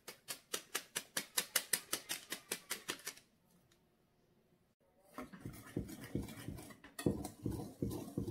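Rapid, even ticking, about six ticks a second for three seconds, while dry yeast is shaken from its packet into the bowl. After a short pause, a whisk knocks and scrapes through dry flour in a glass bowl, growing louder near the end.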